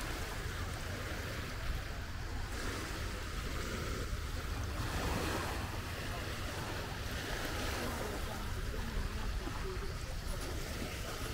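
Seaside ambience: small waves washing on the shore in slow swells, with wind rumbling on the microphone and faint distant voices.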